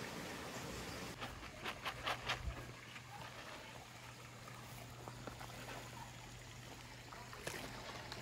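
Small splashes at the surface of a fishpond: a quick cluster of them about a second in and one more near the end, over a faint trickle of water and a steady low hum.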